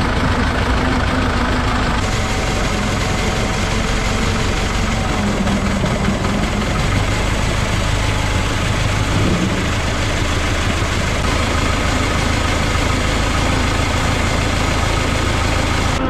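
Tractor engine running steadily as the tractor drives, heard close up from the driver's seat.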